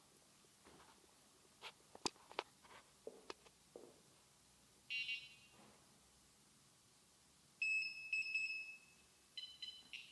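Electronic beeps from an electric standing wheelchair's controller. A few sharp clicks come first. About five seconds in there is one short beep. A longer steady tone follows a couple of seconds later, then a run of quick beeps near the end.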